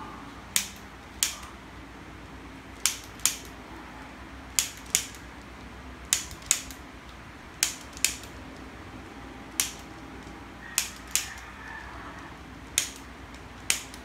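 Handheld spring-loaded chiropractic adjusting instrument firing against the shoulder and upper back: about fifteen sharp clicks, most in pairs about half a second apart, with a pause of a second or more between pairs.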